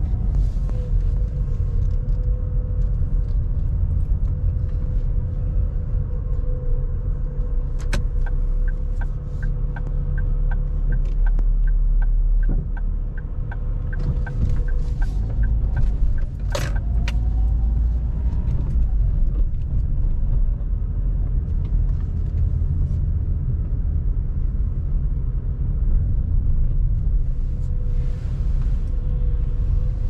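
Car driving, heard from the cabin: a steady low rumble of road and engine noise with a faint steady hum. About eight seconds in a click, then a turn indicator ticking about three times a second for some seven seconds, and a single sharp knock just past the halfway point.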